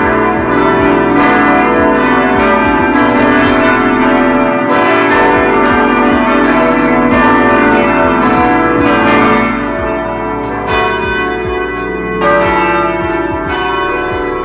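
A carillon of 61 bells cast in Holland playing loud at close range: many bells are struck in quick succession by their hammers, and their tones ring on over one another. It thins a little near the end.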